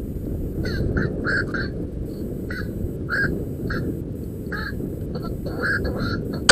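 Black-crowned night herons (koak) calling, a run of short hoarse 'kwak' calls, one to three a second, over a steady low rumble.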